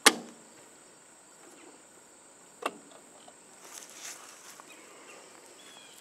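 Hinged plastic weatherproof cover on an outdoor outlet box being snapped shut and then unlatched: a sharp plastic click at the start, another about two and a half seconds in, then a few small ticks as it swings open. Insects keep up a steady high buzz underneath.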